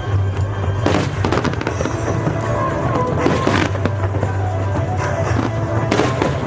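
Fireworks bursting and crackling in clusters about one, three and a half and six seconds in, over steady music.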